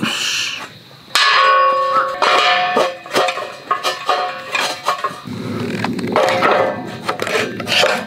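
Steel plates of a HILLS FIELD hexagonal fire pit clanking together as it is assembled: a sharp metal clang about a second in that rings on in several clear tones, then more knocks, and from about halfway through metal scraping and knocking on metal.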